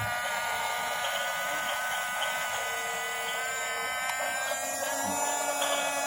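Radio-controlled model bulldozer's small electric motors whining steadily as it works, a high buzzing hum.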